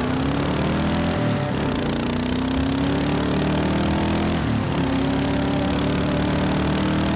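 2023 Kawasaki KLR 650's single-cylinder engine accelerating through its exhaust. The revs climb steadily, then drop sharply about a second in and again about four and a half seconds in as it shifts up a gear.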